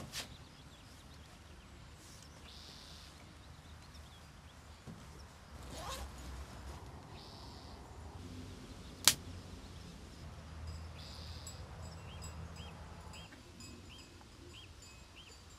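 Quiet outdoor ambience with faint rustles of handling, a single sharp click about nine seconds in, and near the end a run of about seven faint, evenly spaced chirps.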